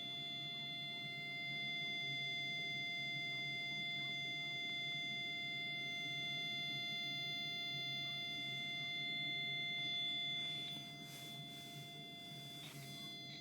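555 timer oscillator circuit driving a small speaker: one steady, unwavering buzzy tone that holds the same pitch throughout. About ten seconds in it gets a little quieter, with some brief rustling.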